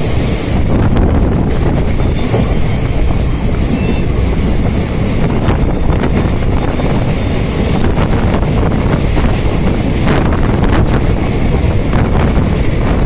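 A moving train: a steady, loud rumble of wheels on track with scattered clicks, and wind buffeting the microphone.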